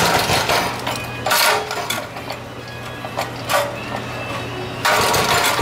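Planet Jr. Super Tuffy garden tractor's air-cooled single-cylinder engine running steadily just after a cold start. A few louder, short noisy swells come over its hum: at the start, around a second and a half in, and near the end.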